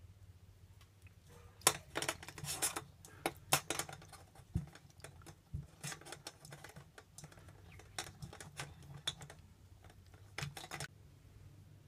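Porlex Mini hand coffee grinder burr parts being scrubbed by hand in a stainless steel bowl: irregular clicks, knocks and scrapes of the parts against each other and the bowl, in clusters.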